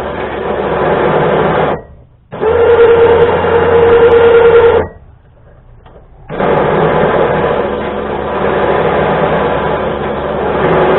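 Small 2500-pound electric winch motor running in three short bursts, spooling steel cable back onto its drum. The middle run carries a steady whine.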